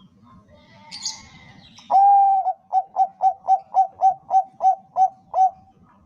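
Bangkok perkutut (zebra dove) cooing: one long coo, then a quick run of about eleven short coos at about four a second. A brief high chirp comes about a second in, before the song.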